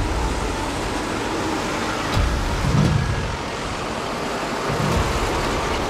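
Heavy diesel truck rumbling past slowly in traffic, with road noise and a few dull low thumps.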